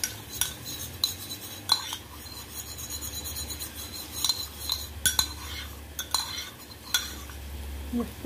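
Metal spoon beating cornstarch into a little water in a ceramic bowl, clinking against the bowl's sides in sharp, irregular knocks, sometimes several a second.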